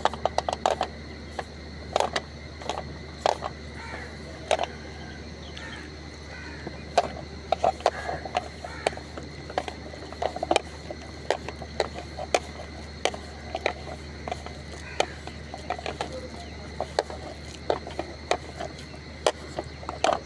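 Pakora batter of boiled chicken, egg, flour and chopped vegetables being mixed in a bowl: irregular clicks and knocks of the mixing against the bowl.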